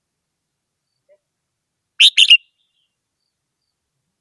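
Red-whiskered bulbul giving one short two-note chirp phrase about two seconds in.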